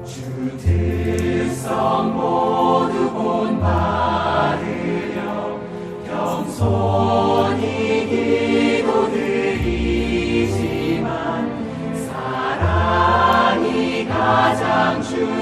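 Choral Christian song: voices singing sustained notes over a low bass line that changes pitch every few seconds.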